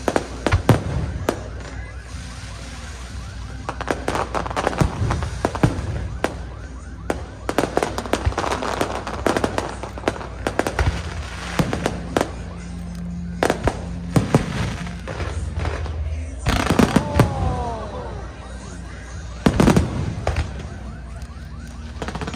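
Fireworks display: repeated bangs and crackling bursts in quick succession, with a few whistling glides about two-thirds of the way through.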